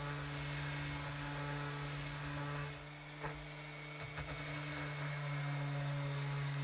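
Einhell 18 V cordless orbital sander running steadily against a timber edge, a constant motor hum. It goes a little quieter for a couple of seconds in the middle, with a few light knocks.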